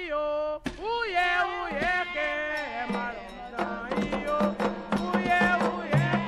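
A woman's voice sings a Candomblé chant over percussion; the percussion grows busier and steadier from about halfway through.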